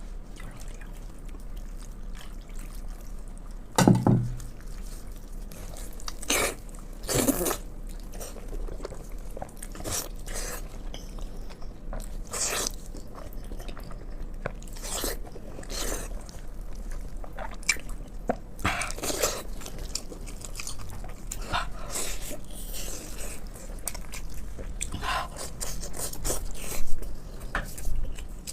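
Close-miked eating sounds of pork in sauce being chewed: wet smacks and bites that come in irregular bursts.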